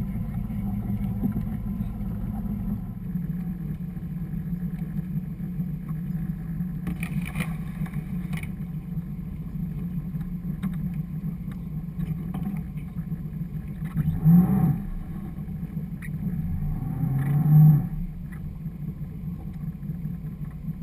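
Motorboat engine running at idle, a steady low drone, with two brief louder swells in the second half.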